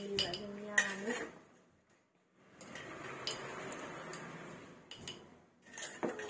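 A metal spoon clinking against a glass jar and scraping on a steel plate as pickle is spooned into the jar. There are a few sharp clinks over a soft scraping, and a woman's voice in the first second.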